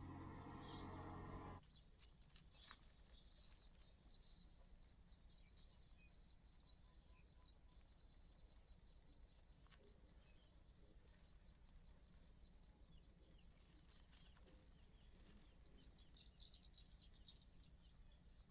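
A small bird giving a long series of short, high, sharp chirps, about two a second, loudest a few seconds in and then gradually softer and more spaced out.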